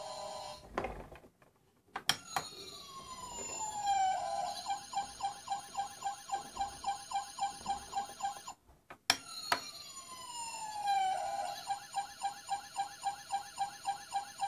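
Dickie Toys push-and-play fire engine's electronic siren sounding twice, each time starting with a click. Each run begins with a falling wail that turns into a fast, pulsing warble lasting several seconds.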